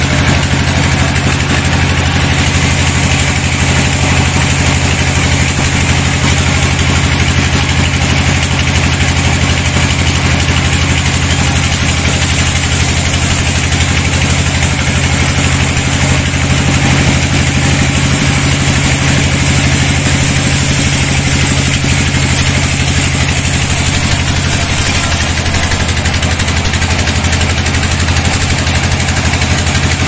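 Band sawmill running steadily as its blade rips lengthwise through a log: a constant machine hum under the hiss of the blade cutting wood.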